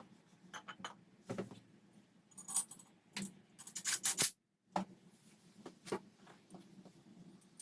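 Small metal tools and engine parts clinking and tapping as they are handled, with one brighter ringing metallic clink about two and a half seconds in. The sound drops out completely for a moment a little past the middle.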